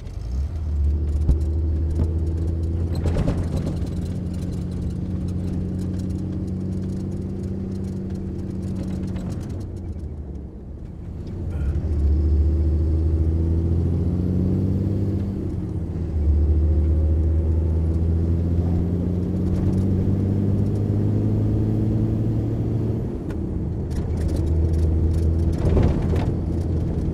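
MAN LE280B 4x4 truck's diesel engine running under way. The engine note falls away about ten seconds in, picks up again about two seconds later and rises once more a few seconds after that.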